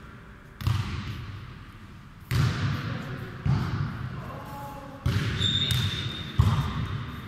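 A futnet ball being kicked and bouncing on a hard court floor. Five sharp thuds come at uneven gaps of about one to two seconds, each echoing in a large hall.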